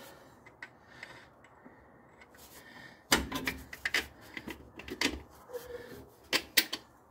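Scattered clicks and knocks of hands working a mounting bolt into a replacement alternator as it is seated in its bracket. It is quiet at first, with a burst of knocks about three seconds in and two sharp clicks near the end.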